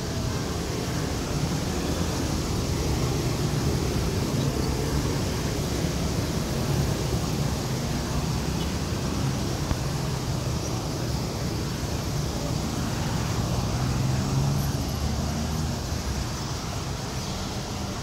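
Steady road traffic at a city intersection: a continuous rumble of passing vehicles with no breaks.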